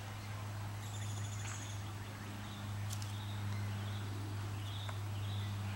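Small birds chirping in the background, with a quick high trill about a second in and short chirps later, over a steady low hum.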